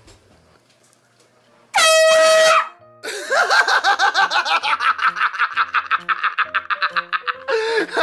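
Handheld compressed-gas air horn blown in one loud, shrill blast just under a second long, about two seconds in. It is followed by a fast, even pulsing sound over background music.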